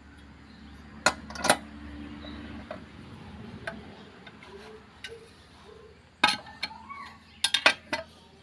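Sharp metallic clinks of tools and parts being handled on a motorcycle engine crankcase: two about a second in and a quick cluster of several near the end. A low steady hum sounds underneath for the first few seconds.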